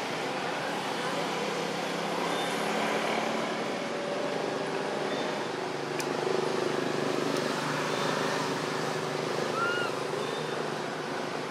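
Outdoor background noise with the low hum of a distant motor vehicle running, growing a little louder about six seconds in.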